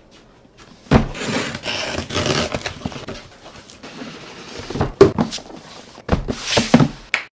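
Cardboard shipping box set down on a table with a knock, then its flaps pulled open with a stretch of cardboard rustling and scraping. Further knocks of cardboard on the tabletop follow, the last cluster near the end, as the boxes are moved and set down.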